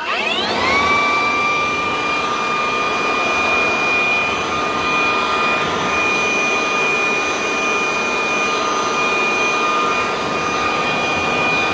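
Cordless brushless handheld blower spinning up with a rising whine about a second in, then running steadily at full speed with a high, even whine over rushing air.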